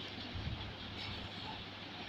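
Sliced onions and whole spices sizzling in hot oil in a nonstick pot, with a few low knocks from a spatula stirring them.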